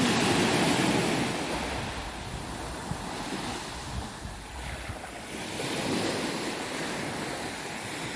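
Sea waves breaking and washing up the shore, rising and falling in slow swells, with wind buffeting the microphone.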